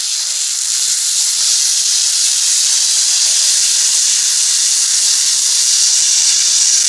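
Steady high-pitched hiss with no rhythm or distinct events.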